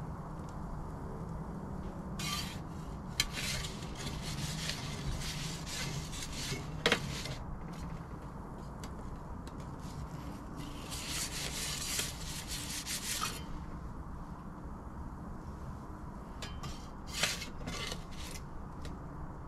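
A metal pizza peel scraping across the pizza oven's baking stone in several short bouts as the pizza is turned, over the steady roar of the oven's propane burner.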